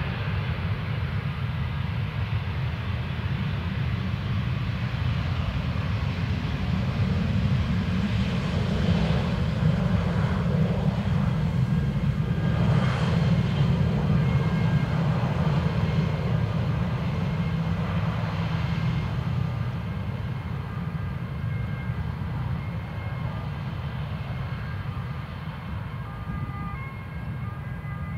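Jet airliner passing on its landing approach: a low engine rumble that swells to its loudest about halfway through, then fades away, with a thin engine whine in the later part.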